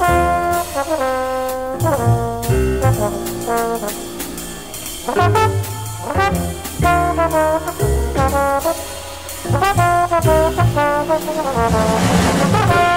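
Hard bop jazz recording by a trumpet, alto sax and trombone sextet: a single brass horn plays a solo line of quick phrases with slurred, gliding notes over upright bass and drums, the cymbals swelling near the end.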